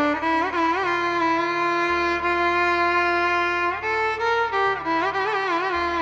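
Carnatic violin playing a slow melody, with quick oscillating slides around its notes and one long held note in the middle, over a steady tanpura drone.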